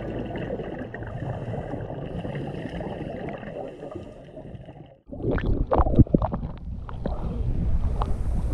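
Low underwater rumble and gurgling that fades out about five seconds in. After a sudden cut, sea water slaps and splashes around a camera at the surface, with wind on the microphone.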